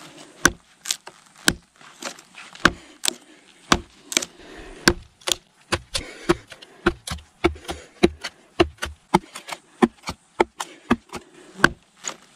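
Victorinox Venture knife (Sandvik 14C28N stainless blade) being stabbed tip-first into wood again and again in a tip test: a fast, irregular series of sharp wooden knocks, about three a second.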